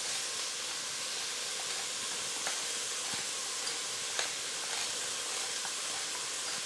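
Finely chopped onion, carrots and celery sautéing in oil in a stew pot: a steady sizzle with a few small pops.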